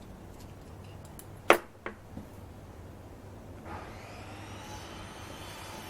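A sharp hard clack with two lighter knocks just after it, then about three and a half seconds in a small electric motor spins up, rising in pitch, and runs on steadily.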